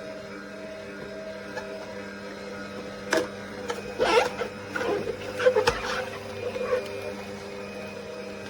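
AMZCHEF cold-press slow juicer's motor running with a steady hum. Irregular crackles and snaps come through between about three and seven seconds in.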